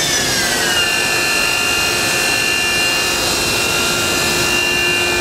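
Daewoo DMV 3016 vertical machining center's CAT40 spindle running at high speed, close to its 7,800 rpm maximum, with a steady high-pitched whine over a hiss. The whine drops in pitch during the first second, then holds steady.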